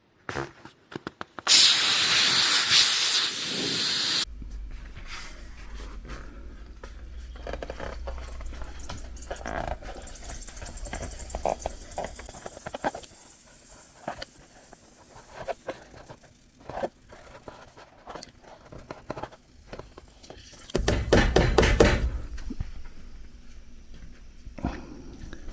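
Compressed air hissing: a loud blast of about three seconds near the start, a fainter high hiss in the middle, and a second short blast near the end, with scattered clicks and a low steady hum underneath from about four seconds in.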